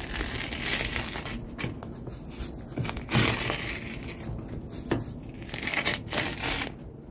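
Pizza wheel cutter rolling through the crisp crust of a wood-fired pizza, a run of crackling crunches with a few louder cracks, the loudest about three seconds in. The crunching is the sign of a well-crisped, toasted bottom crust.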